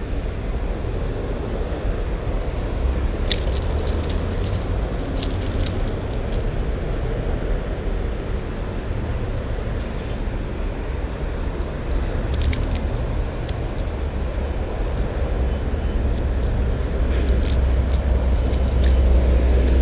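Steady low outdoor rumble that grows louder near the end, with scattered light clicks and rattles of handling throughout.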